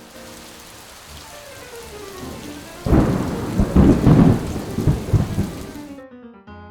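Thunderstorm sound effect: steady rain hiss with a sudden loud thunderclap about three seconds in that rumbles on for a couple of seconds; the rain cuts off suddenly near the end.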